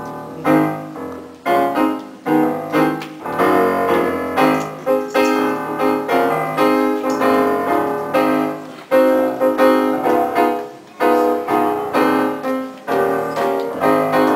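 Piano playing the introduction to a choral song: a series of struck chords, each ringing and fading before the next.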